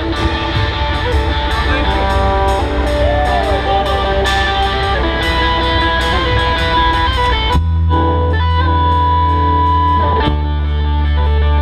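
Instrumental post-rock band playing: electric guitars over drums and bass, with a guitar note bent in pitch early on. About two-thirds of the way through the drums drop away, leaving held guitar notes over a sustained bass.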